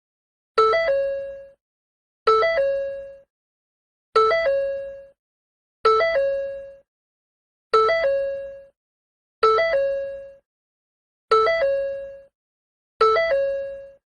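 Ford door warning chime repeating steadily, about once every two seconds, eight times: each one a quick two-note ding settling into a single tone that fades out within about a second, with silence between.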